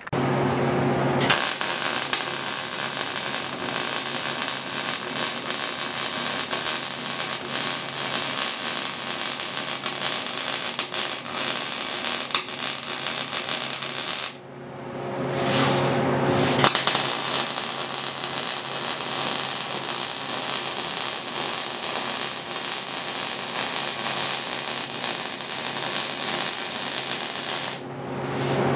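MIG welding arc crackling steadily as two forward-and-back weave beads are run along an outside corner joint of 1/8-inch hot-rolled steel. The first pass is a drag and the second a push. About thirteen seconds of crackle comes first, then a gap of about two seconds in which only the welder's steady hum is heard, then a second run of about eleven seconds, with the hum again just before the first and after the last.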